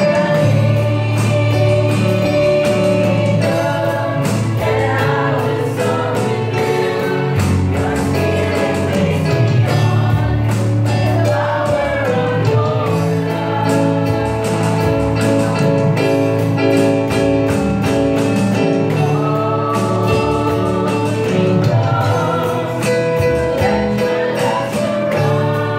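A live worship band playing a gospel song: a small group of women singing together over keyboard, acoustic guitar and drums, with no pauses.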